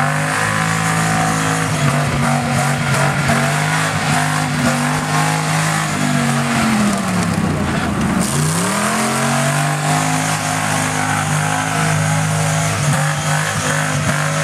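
Engine of a lifted small 4x4 SUV running at high revs as it drives through a grassy mud field; the revs drop and then climb back about seven to eight seconds in.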